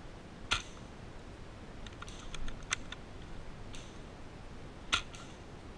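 Airsoft gunfire: two sharp cracks about four and a half seconds apart, with a quick run of fainter clicks between them.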